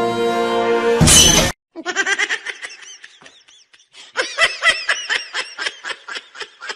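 A person laughing in quick repeated bursts, in two runs with a short gap between. Before that, background music ends in a short, loud noisy burst about a second in.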